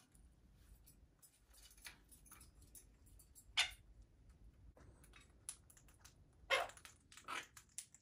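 Pet parrots (quaker parrots and a sun conure) eating pellets: scattered light clicks and taps of beaks, with a few short harsh squawks, one about three and a half seconds in and two close together near the end.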